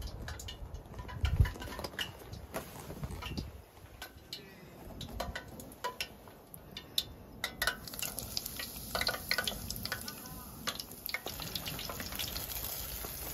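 Battered squid deep-frying in a small camping mini fryer pot of hot oil: a sizzling hiss full of scattered crackles and pops, with clicks of chopsticks and the draining rack against the pot.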